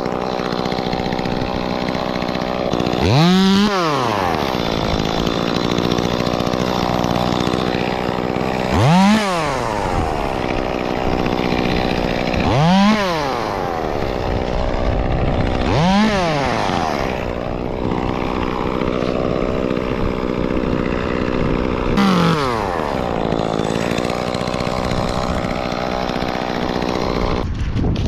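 Chainsaw running at idle throughout, revved up briefly five times as it cuts limbs off a cedar trunk. After each rev it drops straight back to idle.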